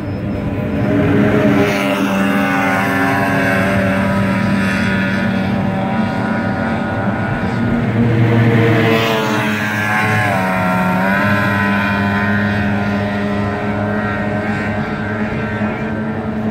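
Racing outboard motors running at high revs as race boats pass, a steady high engine drone that swells near the start and again about halfway, with the pitch bending down as a boat goes by.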